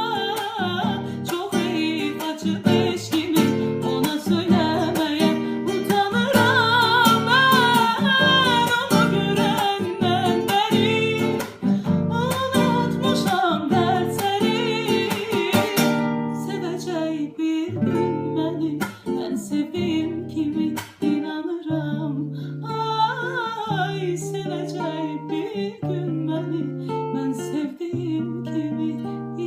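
A woman singing a love song over a plucked acoustic guitar. The voice wavers strongly through the first half, and the accompaniment thins after about sixteen seconds.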